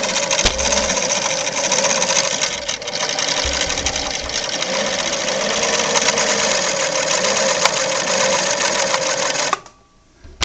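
Vintage Singer Fashion Mate 360 sewing machine running steadily at speed for about nine seconds, then stopping abruptly.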